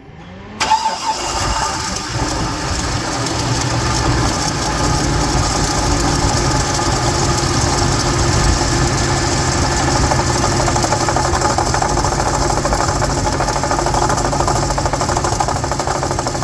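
Car engine cranked by the starter with a short rising whine, catching about half a second in, then idling steadily.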